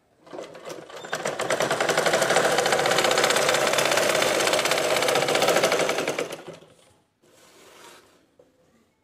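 Domestic sewing machine stitching a seam: it picks up speed over the first second or so, runs fast and steady with rapid needle strokes, then slows and stops about six and a half seconds in. A soft rustle of fabric being handled follows.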